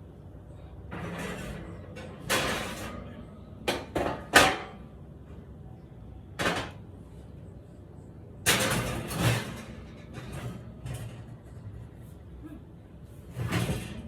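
Kitchen handling noise: a series of short knocks, bumps and clatters, the loudest about four seconds in, with a burst of longer rattling and scraping around the nine-second mark.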